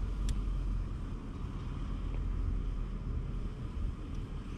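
A low steady rumble, with one sharp click about a third of a second in and a fainter tick about two seconds in.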